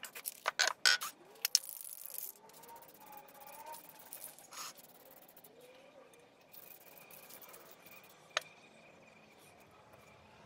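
Aerosol can of clear coat being handled and sprayed: a quick run of sharp clicks and rattles in the first two seconds, then short hissing sprays, with one sharp click near the end.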